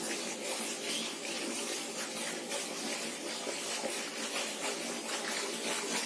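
Steady, even hiss of outdoor background noise with no voice.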